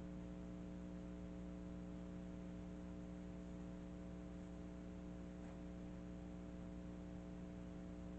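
Steady electrical hum: several constant tones over a faint hiss, unchanging throughout.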